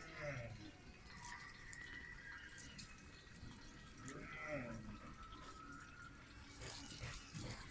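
Faint bubbling and dripping of water in a pot heating over a small wood fire, with a few sharp clicks near the end.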